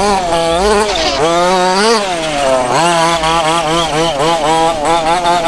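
A 1:5 scale gasoline RC buggy's two-stroke engine revving hard and dropping back over and over, its pitch rising and falling about once a second as the throttle is worked through the track.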